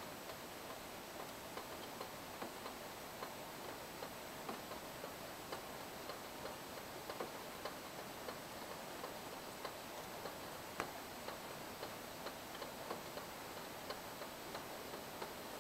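Rain falling steadily, with drops tapping irregularly, a few each second, one sharper tap about two-thirds of the way through.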